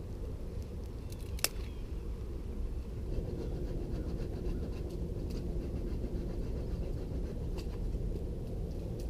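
Campfire of dead pine burning: a few sharp crackling pops, the loudest about a second and a half in, over a steady low rumble.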